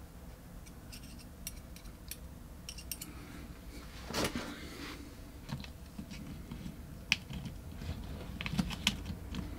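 Faint scattered clicks and small rattles of a small pinion gear and RC axle parts being handled and fitted by hand, with a brief scraping rustle about four seconds in.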